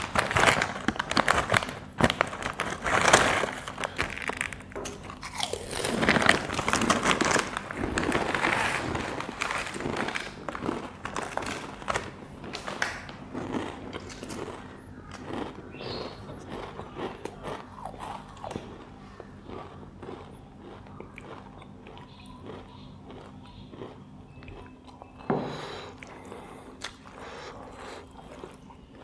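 A foil-lined Lay's potato chip bag crinkling loudly as it is torn open and handled through the first several seconds, followed by close-up crunching and chewing of potato chips that grows fainter toward the end.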